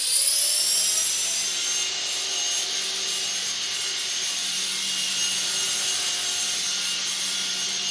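Blade 300 X electric RC helicopter spooling up: its motor whine rises in pitch over the first second or so, then holds steady with rotor hiss as it hovers on newly fitted carbon fiber main blades.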